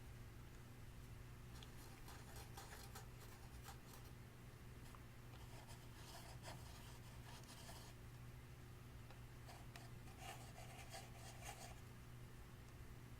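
Faint soft rubbing and scraping of slime being mixed, in a few scattered spells, over a low steady hum.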